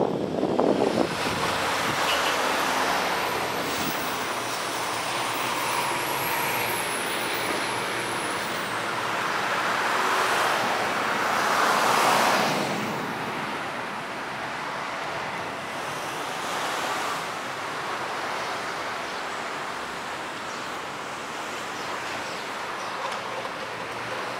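Road traffic noise at a city intersection: a continuous hiss of cars and tyres, with one vehicle passing loudest about ten to twelve seconds in.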